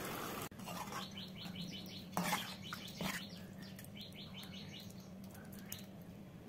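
A small bird chirping in quick runs of short, falling notes, over a steady low hum, with a couple of light knocks.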